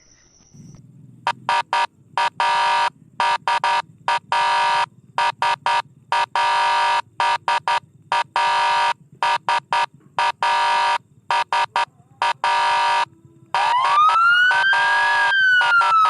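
Siren of a Chinese army vehicle: a steady horn-like tone sounded in irregular on-off blasts for about twelve seconds, then a wailing sweep that rises and falls, over a faint low rumble.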